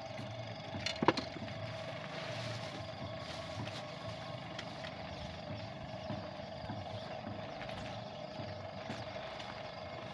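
A motor running steadily in the background, a constant hum, with a few sharp clicks about a second in.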